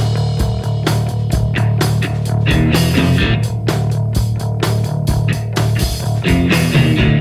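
Grunge punk rock band playing an instrumental passage: guitar and bass guitar over a steady beat of drum hits, with no singing.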